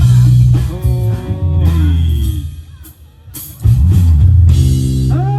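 Live rock band with electric guitar, bass and drum kit playing during a sound check. The playing breaks off about two and a half seconds in, goes nearly quiet for about a second, then starts again loud.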